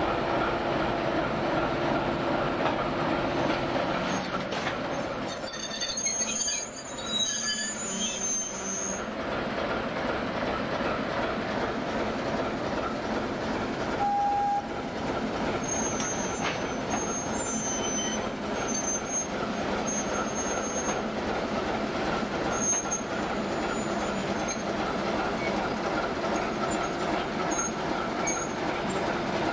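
ChME3T shunting locomotive's diesel engine running as it moves passenger coaches at slow speed, with the wheels squealing on the rails in high-pitched stretches about five seconds in and again past the middle. A short single-note tone sounds once near the middle.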